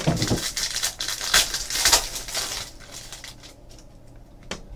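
Trading card pack wrappers being torn open and crinkled, a dense crackling rustle for about the first two and a half seconds, then fainter rustling and a few light clicks.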